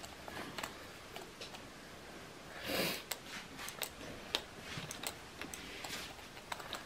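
Scattered light clicks and taps from cage parts being handled, with a brief rustle about three seconds in.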